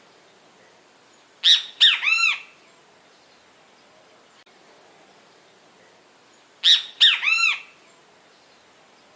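Great kiskadee calling its three-note "bem-te-vi" twice, about five seconds apart: two short sharp notes, then a longer arched note.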